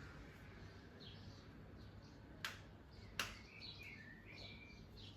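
Two sharp clicks about three-quarters of a second apart, the second louder, as a part is handled and removed from a vacuum cleaner being dismantled. Faint high chirps and a low hum run underneath.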